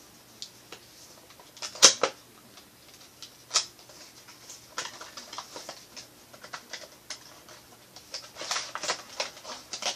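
Hands handling a small USB hub and its packaging: scattered clicks and taps, a sharp knock about two seconds in and another a little later, and a patch of quick rustling ticks near the end.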